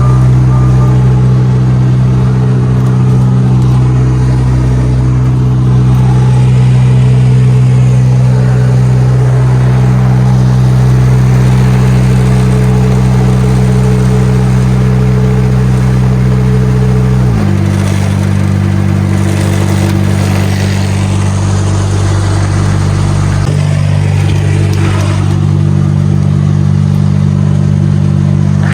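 DAF XF truck's six-cylinder diesel engine running steadily under way, with road noise; a little over halfway through the engine note steps down suddenly to a lower pitch.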